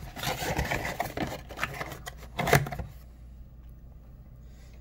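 Trading card packs and their empty cardboard box being handled and set down on a table: a run of rustles, taps and small clicks, with one louder knock about two and a half seconds in.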